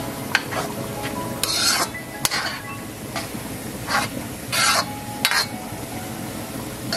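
Metal spoon stirring a thick tomato, pepper and onion sauce in a wok, with a few harsh scrapes of the spoon against the pan over a steady low sizzle of the sauce on the heat.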